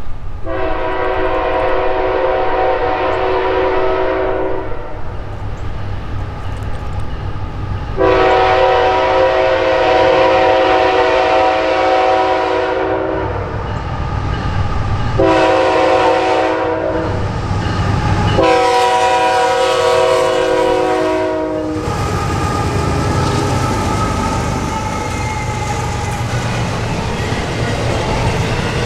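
Air horn of a GE ET44AC diesel locomotive blowing the grade-crossing signal: two long blasts, a short one and a final long one. The train then rolls past, with the steady rumble of its double-stacked container well cars going by.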